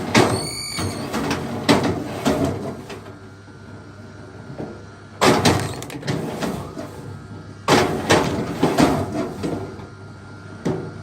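Axe blows striking wood: single hard knocks and quick runs of two or three strikes, with a short creaking squeal of wood soon after the start.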